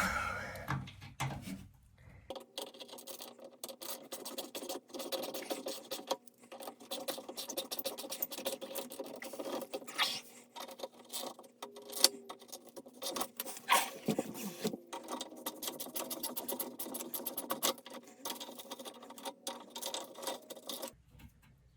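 Hand tools clicking and scraping against the nuts of galvanized pipe clamps, in a dense run of quick, irregular clicks.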